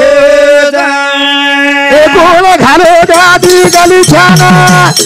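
A man singing a Banjara bhajan into a microphone. He holds one long note for about two seconds, then moves into a wavering melodic line. Rhythmic rattling percussion joins near the end.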